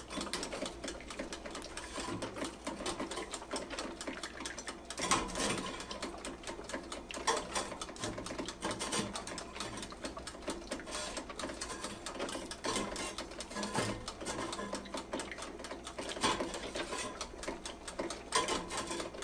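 Toaster oven's dial timer ticking rapidly and evenly as it counts down. A few louder knocks come as slices of toast are turned over on the wire rack.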